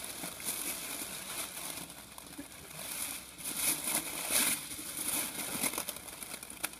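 Liquid nitrogen boiling with a hiss as a plastic bag is pressed down into it by hand, the bag crinkling. The hiss swells and fades several times.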